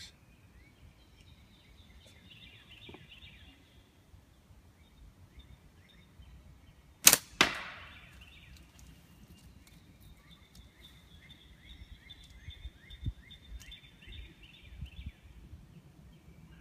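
A slingshot with double-layer natural latex bands fired once: a sharp snap of the bands about seven seconds in, followed almost at once by a second crack.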